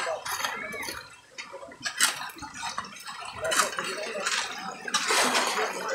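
Shovels and hoes striking and scraping wet gravel and mud, a sharp knock every second or so, with a longer scrape near the end.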